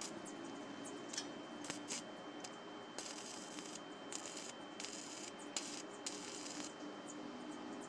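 Stick (arc) welding on a steel wheel-rim grill stand. The arc crackles and sizzles in several short runs from about three seconds in to six and a half, with a few sharp ticks before it.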